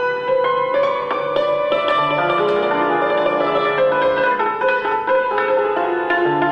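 Concert cimbalom played solo with hand-held hammers: quick runs of struck metal-string notes that ring on over one another, in Romanian lăutar style.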